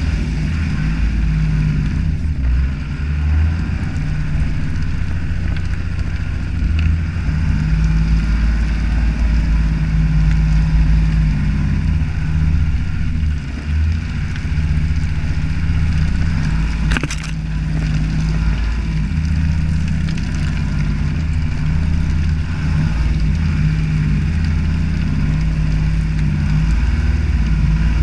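Toyota HJ61 Land Cruiser's 12H-T turbo-diesel straight-six running under load at low speed, its note rising and falling as the throttle changes. A single sharp knock sounds a little past the middle.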